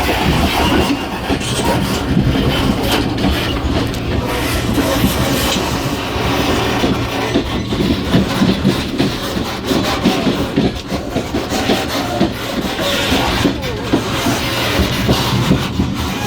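EMU500 electric multiple unit running, heard at the gangway connection between two cars: continuous running rumble with steady rattling and knocking from the coupling and gangway and the wheels on the track.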